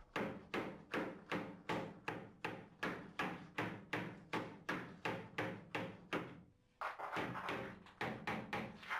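Steady, even knocks on a wooden bath panel being driven into a tight fit under a bath, about two or three a second, with a short pause about two-thirds through before the knocking resumes.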